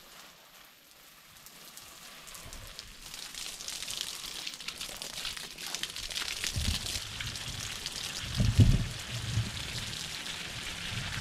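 Water spray from a garden hose pattering on soil and leaves, a hiss that grows louder after the first couple of seconds. A few dull low bumps come in the second half.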